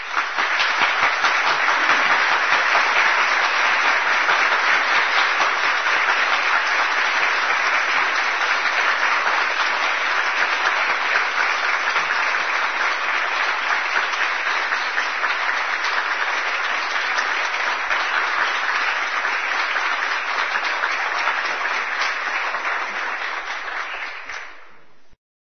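Sustained applause, dense clapping that swells over the first couple of seconds and fades out near the end.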